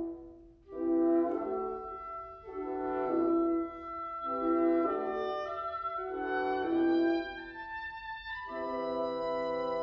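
Woodwind quintet of flute, oboe, clarinet, French horn and bassoon playing together: short chords that swell and fade about every two seconds, then a long held chord from about eight and a half seconds in.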